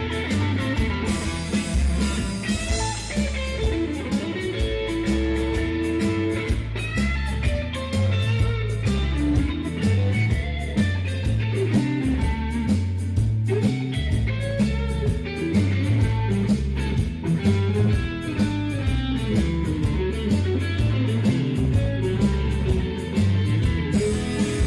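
Live band playing blues-rock during a sound check: electric guitar over a walking bass line, with drums keeping a steady beat.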